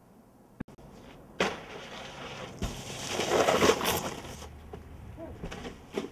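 Snowboard sliding and scraping over snow, a hiss that starts sharply about a second and a half in, grows loudest near the middle and fades, with a short knock before it and a few smaller thuds near the end.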